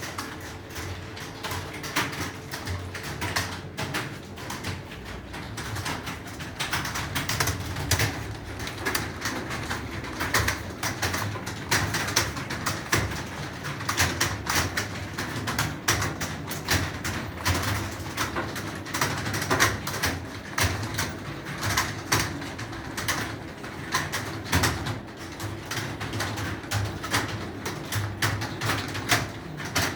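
Computer keyboard being typed on quickly: a dense, irregular run of key clicks that keeps going without a break.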